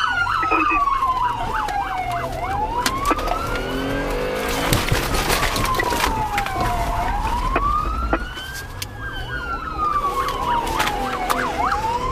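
Police car siren heard from inside the patrol car's cabin, going from a fast yelp to a slow wail about a second in, rising and falling about every four to five seconds. A louder rush of noise comes in around the middle.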